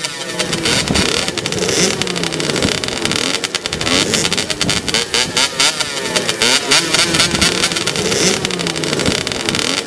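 Two-stroke motocross bike engine being revved repeatedly, its pitch rising and falling several times over a rapid crackling firing note.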